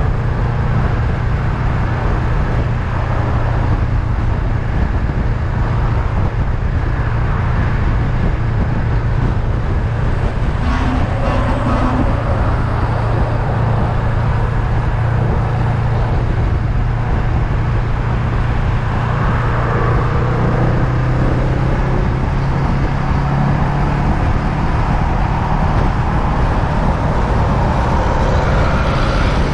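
Honda Rebel 500's parallel-twin engine running at a steady cruise with a constant low hum, mixed with wind and road noise from riding.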